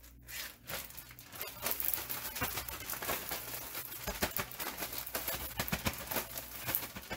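Plastic zip-top bag crinkling as it is shaken to mix the dry flour, cornmeal and seasoning breading inside. A dense, rapid crinkling builds from about a second and a half in.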